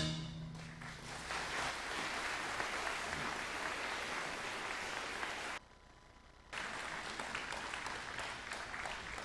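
The last chord of a school band dies away in the first second, and an audience applauds. The applause cuts out for about a second past the middle, then resumes.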